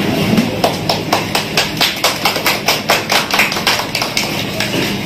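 A crowd clapping in unison, about four claps a second, starting just under a second in and stopping near the end, over the murmur of the gathering: applause as a ribbon is cut.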